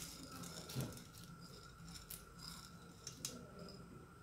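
Dry lentils poured from a bowl into a stainless steel pot of dry pulses, faint, with a few light clicks later on.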